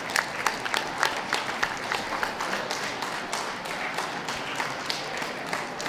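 Audience applauding, sharp individual hand claps standing out over a steady patter of clapping.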